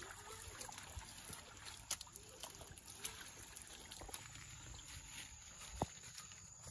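Faint sloshing and trickling of shallow pond water as someone wades through it, with one sharp knock near the end.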